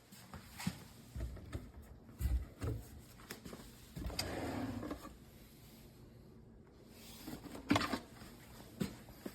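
Scattered handling noises: a few soft knocks and sharp clicks, with a brief rustle about halfway through.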